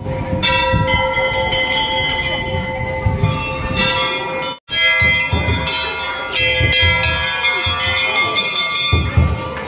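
Temple bells being struck over and over, several bells clanging together with long ringing tones over a low hubbub. The sound breaks off for an instant a little under five seconds in.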